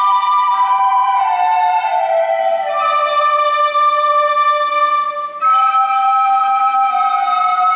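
Slow folk music in two parts: long held notes that step downward together, then a new phrase starting on higher notes about two thirds of the way through.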